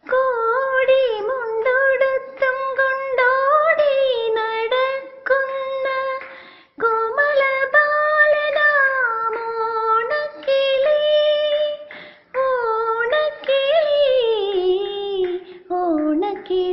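Female voice singing a wordless, gliding melody line with no lyrics, with short pauses about 7 and 12 seconds in.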